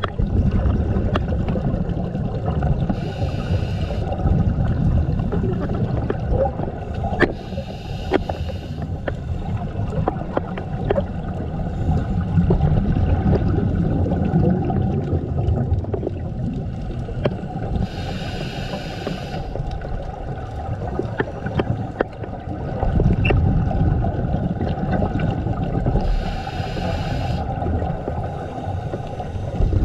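Scuba breathing heard underwater: four bursts of regulator exhaust bubbles, at irregular intervals several seconds apart, over a steady low rumble.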